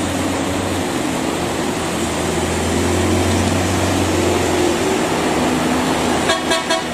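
Coach bus engine running with steady road noise, and a short pulsing burst of horn toots near the end.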